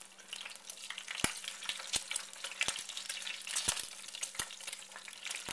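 A fried egg sizzling and crackling in hot fat in a nonstick frying pan, while a slotted spatula is worked under the egg to flip it, giving a few sharp taps against the pan.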